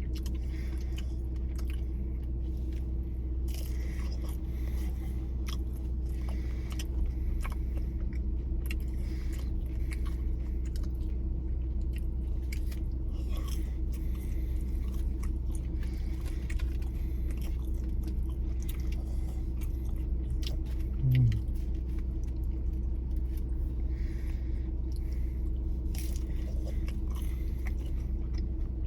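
Close-miked chewing and biting: a person eating, with many small wet mouth clicks and crunches, over a steady low hum. A brief low hum from the eater's voice about 21 seconds in.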